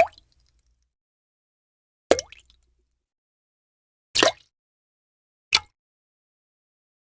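Four short plop-like pop sound effects played one after another, about a second and a half to two seconds apart, with dead silence between them.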